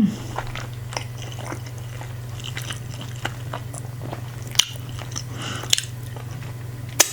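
Close-miked chewing and wet mouth sounds of someone eating, with scattered smacks and clicks, the loudest about four and a half and seven seconds in. A steady low hum runs underneath.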